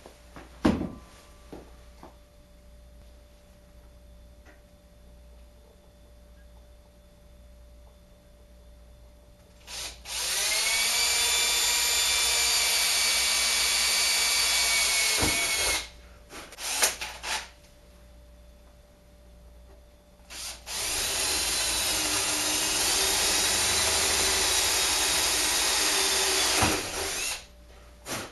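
Power drill drilling a pilot hole: two runs of about six seconds each with a steady high whine, separated by a pause, with a few knocks and clicks of handling around them.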